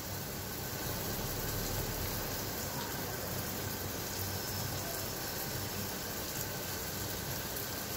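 Mutton simmering in a clay handi over a gas flame, a steady hiss without breaks.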